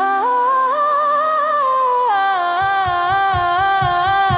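Music: a wordless hummed melody line held and gliding between notes. A steady drum beat comes in a little past halfway.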